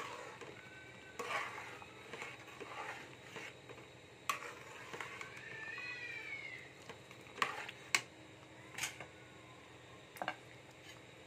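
Steel ladle stirring thick semolina halwa in a metal kadhai, with a few sharp clinks of the ladle against the pan in the second half. A pitched call that rises and falls is heard in the background about midway.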